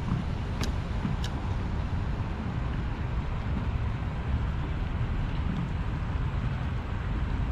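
Wind buffeting the microphone, a steady low rumble, with two faint sharp clicks in the first second and a half.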